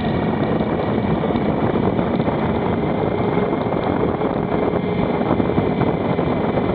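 Motorcycle riding at a steady speed: constant wind rush over the microphone with the engine running underneath.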